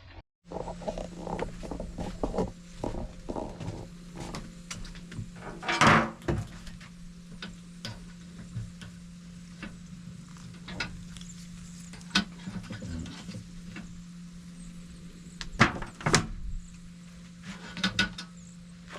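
Scattered knocks, clanks and clicks as the Orion cooker's lid and inner parts are lifted and handled, the loudest knocks about six seconds in and again near sixteen seconds, over a steady low hum.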